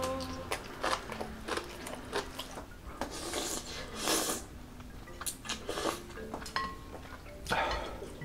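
Close-miked eating sounds: chewing and slurping ramen, with light clicks of a spoon and chopsticks against a glass bowl. A long slurp from a spoon comes about four seconds in and another near the end, over faint background music.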